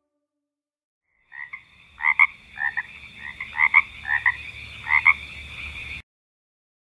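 Frogs croaking, a stock sound effect: about ten short croaks, some in quick pairs, over a steady high-pitched background tone, cutting off suddenly near the end.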